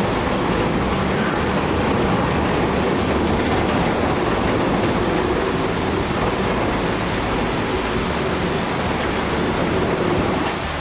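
Steady rumbling, clattering noise of a building being demolished.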